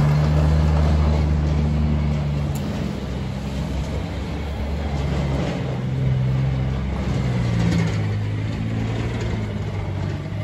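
Engine of a small tracked armoured vehicle running as it is driven around, its note shifting in pitch several times.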